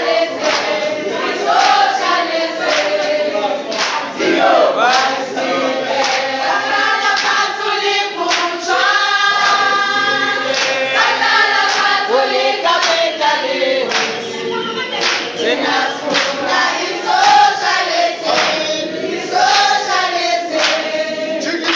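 A crowd singing together in chorus, many voices at once, with claps keeping a steady beat.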